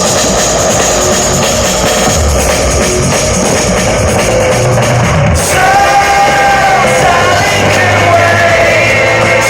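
Loud rock music playing steadily, with a singing voice coming in about halfway through.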